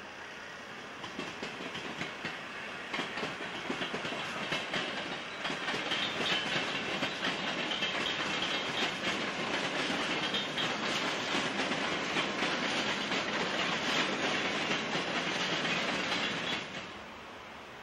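NS Koploper (ICM) electric intercity train rolling over pointwork, its wheels clicking over rail joints and switches. The clicking grows louder over the first half, then stops abruptly near the end.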